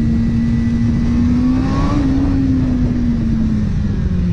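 Sport motorcycle engine running at cruising speed over a low rumble. The engine note rises slightly about halfway through, then drops lower near the end as the throttle eases.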